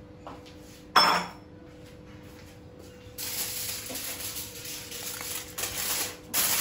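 A single sharp metallic clink about a second in, then aluminium foil crinkling from about three seconds in as a sheet is spread to cover the fish on the tawa.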